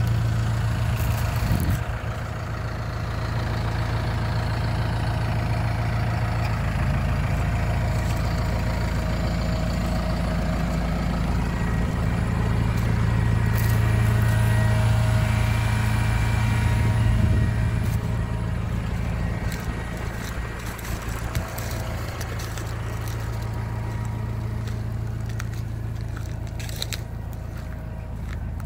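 Farm tractor's diesel engine running steadily with a low, even drone, a little louder around the middle. A few brief crackles are heard over it.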